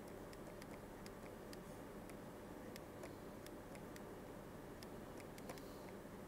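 Faint, irregular ticks of a stylus tapping on a pen tablet during handwriting, over a low room hiss.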